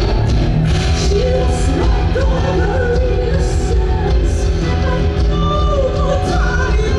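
Live rock band playing loud, with a woman singing into a microphone over electric guitar.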